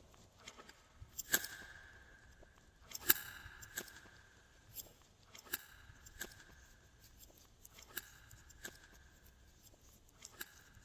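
Glossy slime being worked by hand, giving irregular sharp pops and clicks every second or two as trapped air bursts; several of the louder pops are followed by a brief ringing tone.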